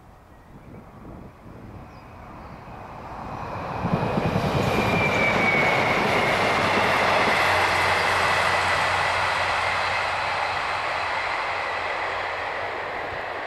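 Two-car diesel multiple unit passing and running away. Wheel and engine noise builds to a peak about four seconds in and then slowly fades, with a high whine that drops in pitch as the train goes by.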